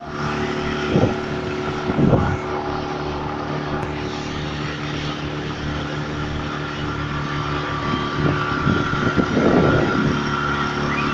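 Motorboat engine running steadily at speed, with a rush of wind and water over the hull. There are brief louder rushes about one and two seconds in and again near the ninth to tenth second.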